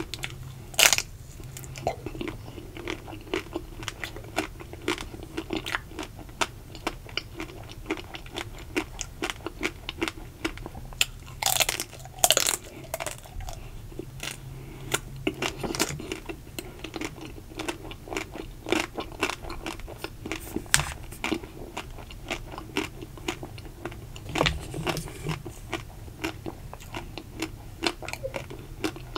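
Close-up eating of a ruby chocolate-coated ice cream bar: bites crack the thin shell, then chewing goes on with many small crunches and mouth clicks. The loudest bites come about a second in, around twelve seconds in and near twenty-five seconds in.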